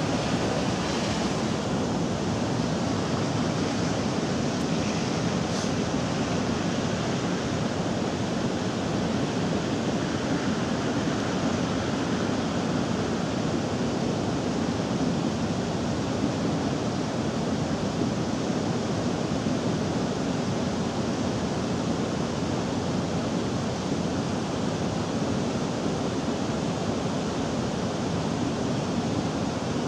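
Swollen, fast-flowing river rushing over rocks: a steady, unbroken rush of water.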